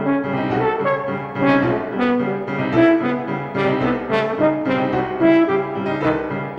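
Instrumental music led by a brass instrument playing a line of short notes over a steady low accompaniment.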